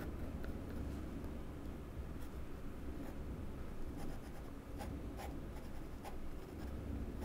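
Light scratching of drawing strokes on paper, as the fountain-pen drawing is worked and its ink bled, over a low steady hum.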